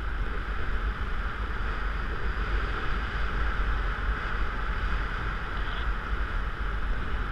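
Steady wind noise from the airflow over a paraglider pilot's body-mounted camera microphone in flight: a low rumble with an even rushing hiss.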